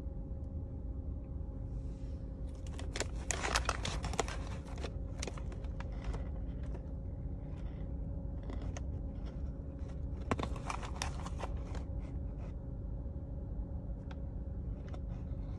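Paper food wrappers crinkling and a handheld phone being handled as a fast-food sandwich and sides are moved about and lifted. The crackling comes in two spells, a few seconds in and again around ten seconds in, over a steady low hum.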